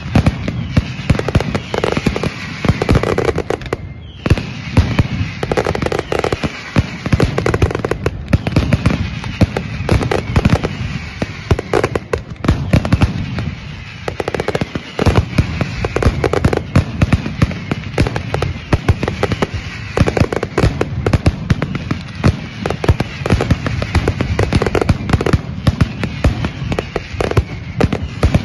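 Mascletà firecrackers going off in a dense, rapid barrage of bangs that never lets up, with aerial bangers bursting overhead.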